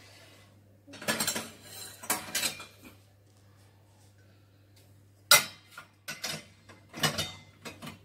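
Stainless steel dishes, bowls and pots clattering and clinking against each other and the wire rack as they are loaded into a mini dishwasher. A few clatters come early, then one sharp clang about five seconds in, followed by a quick run of clinks.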